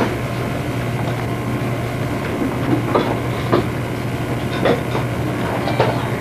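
Steady low hum under a constant hiss, with a few faint short ticks in the second half.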